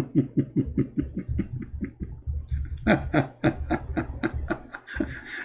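A man laughing in quick breathy pulses, in two bouts, the second starting about three seconds in.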